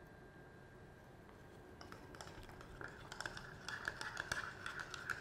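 A stirring rod clinking and scraping against a glass beaker as activated charcoal is stirred into a dye solution: a fast, uneven run of light clinks with a glassy ring, starting about two seconds in.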